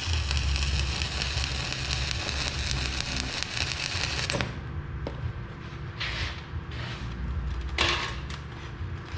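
Shielded metal arc (stick) welding with a 1/8-inch 7018 electrode: the arc crackles and sizzles steadily, then breaks off abruptly about four and a half seconds in. Two short scraping noises follow, under a steady low hum.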